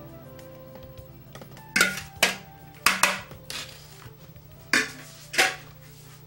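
A metal fork knocking and scraping against a glass mixing bowl as the last of the beaten eggs is worked out: about six sharp clinks, starting a little under two seconds in, over soft background music.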